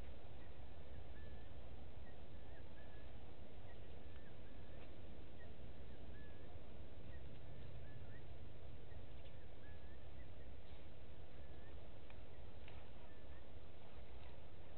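Outdoor bush ambience: a bird repeating short, high chirping notes, a couple a second, over a steady low rumble.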